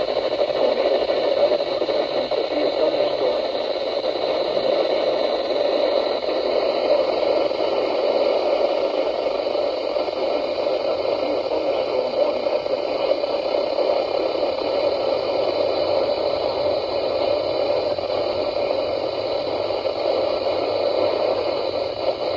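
Steady radio static from a receiver that has lost its station's signal.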